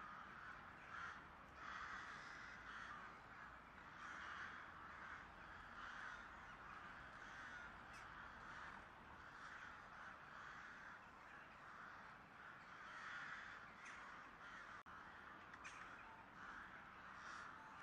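Faint, distant crows cawing, call after call.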